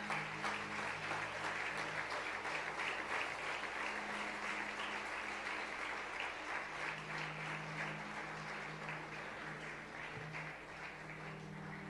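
Congregation applauding steadily, tapering off near the end, with a low held tone underneath.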